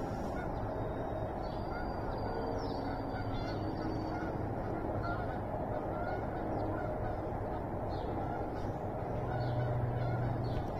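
Outdoor morning ambience: birds chirping over a steady low rumble, with a low hum swelling briefly near the end.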